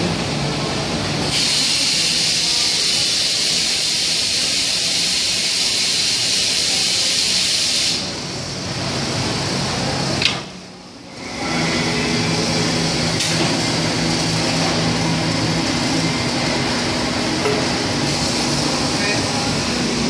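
Rotary can-filling machine: a loud steady hiss of the filler's gas purge for about six seconds, then it stops. About ten seconds in comes a sharp click and a short lull, after which the machine gives a steady hum with a low drone.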